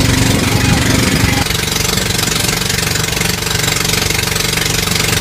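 Engine of a motorized outrigger boat (bangka) running steadily under way, with a hiss of wind and water over it. The engine note changes abruptly about a second and a half in.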